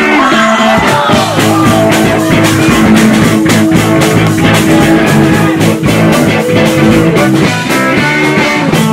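Live rock band playing: electric guitar, bass guitar and drum kit, with a steady drum beat.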